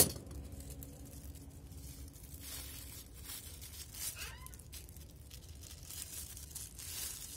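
Plastic wrapping crinkling and rustling in bursts as it is peeled off a rooted bougainvillea air layer. A single sharp click comes right at the start.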